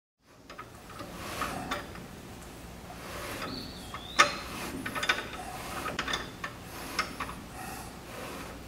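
Ring and pinion gears of a GM 8.5 10-bolt rear axle being turned by hand, with irregular metallic clicks and rubbing as the pinion wipes gear-marking compound off the ring gear to show the contact pattern. A brief high squeak a little before the middle comes just ahead of the loudest, sharpest click.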